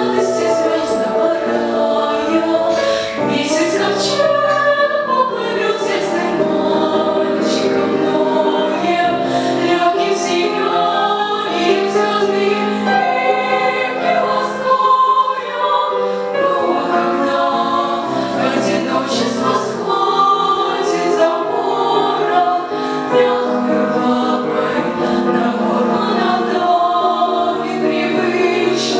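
Girls' choir singing a song with piano accompaniment.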